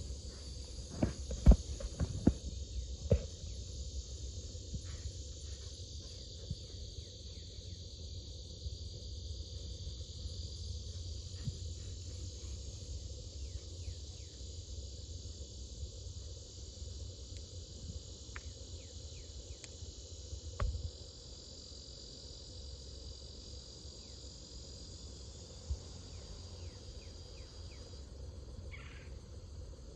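Steady high chirping of insects, with a low rumble underneath and a few sharp knocks in the first few seconds. The insect sound stops near the end.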